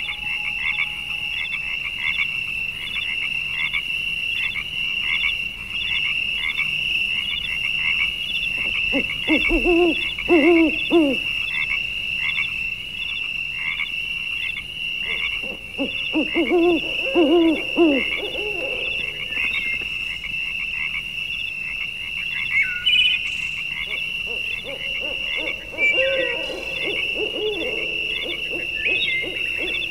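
Wild animal calls: a steady high-pitched chorus pulsing about one and a half times a second, with lower hooting calls in three bouts, about a third of the way in, just past halfway, and near the end.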